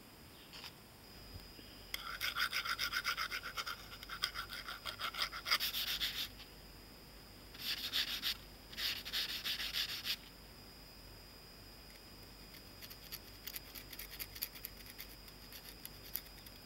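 Small hand file rasping on metal in quick back-and-forth strokes, squaring off a pistol's foresight. The strokes come in spells with pauses between, and the last spell is fainter.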